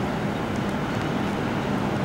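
Steady, even rumble of a jet airliner flying overhead.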